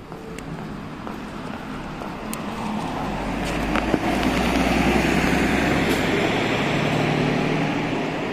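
City bus's diesel engine driving past close by: a low engine hum and rumble that builds as the bus comes alongside, stays loudest for a few seconds in the middle, then fades near the end.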